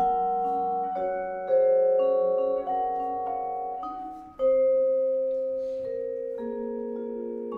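Vibraphone playing slow chords in minimalist chamber music: each chord is struck with mallets and left to ring and fade under the next, a new one about every second or two, the strongest about a second and a half in and again past the midpoint.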